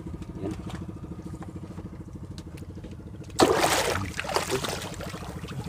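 A fishing boat's engine running steadily, with a sudden loud splash of water about three and a half seconds in that dies away over a second.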